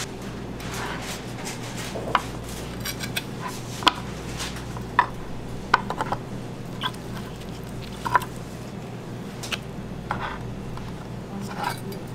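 Scattered sharp clicks and knocks of a knife, bone and gloved hands against a wooden cutting board as a smoked beef rib is taken off the bone and cut, over a steady low hum.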